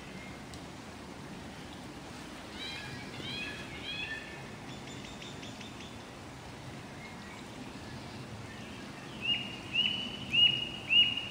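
Common blackbird calling: a few soft, quick chirps about three seconds in, then near the end a run of four loud, sharp, repeated call notes, about two a second. A steady background hiss runs under it.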